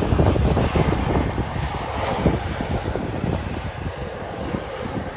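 Jet engines of a KLM Embraer regional jet running as it rolls down the runway, slowly fading as it moves away, with wind buffeting the microphone.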